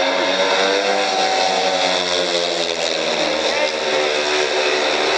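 Speedway motorcycles racing: several 500 cc single-cylinder methanol engines running hard together, their pitch rising and falling as the riders throttle through the track.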